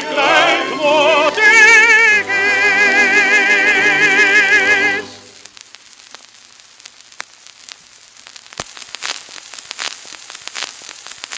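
A tenor with male chorus and orchestra hold the final note of a waltz song with wide vibrato, cutting off about five seconds in. After that the only sound is the surface crackle and scattered clicks of the 78 rpm shellac record spinning on.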